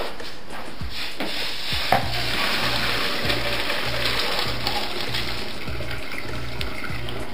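Pasta water poured from a pot into a plastic colander in the sink: a single knock about two seconds in, then an even rushing splash that thins out towards the end. Background music with a steady beat plays throughout.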